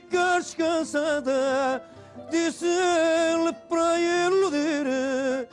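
Male fado singer holding long, wavering vibrato notes, phrase after phrase with short breaths between, over a Portuguese guitar and a classical guitar.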